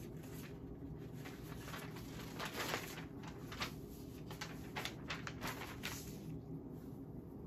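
Cotton fabric pieces and a paper pattern rustling and sliding as they are handled and smoothed flat on a table, in a string of brief swishes from about two to six seconds in, the loudest near the start of them. A steady low hum runs underneath.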